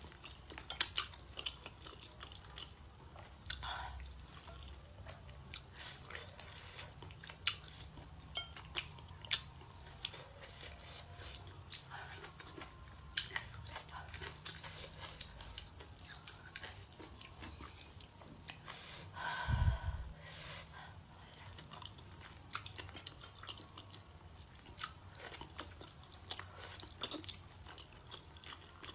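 Close-miked wet chewing and lip-smacking of a person eating stir-fried rice noodles: many short, sharp mouth clicks, with one louder, longer mouth sound about twenty seconds in.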